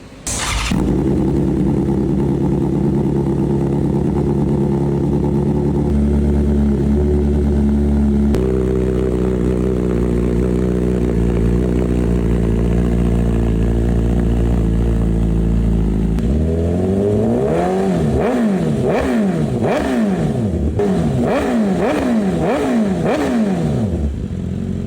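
BMW S1000RR inline-four fires up through an Austin Racing GP1R titanium full exhaust system and idles steadily. The idle steps up slightly about eight seconds in. From about sixteen seconds on, the rider blips the throttle about eight times, roughly once a second, each rev rising and falling back quickly.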